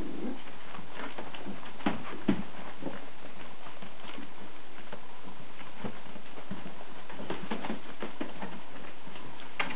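Four-week-old Kooikerhondje puppies scrabbling and tumbling in a wooden whelping box: irregular pattering, scuffling and light knocks of paws and claws on crinkling paper and bedding. There are two louder knocks about two seconds in and one just before the end.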